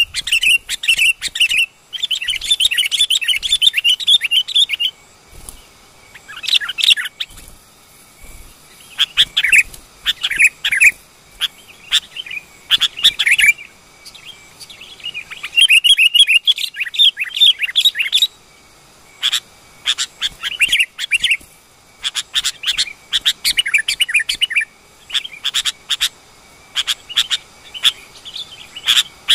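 Sooty-headed bulbul (kutilang) calling in repeated bursts of fast, chattering chirps, phrases of one to three seconds broken by short pauses.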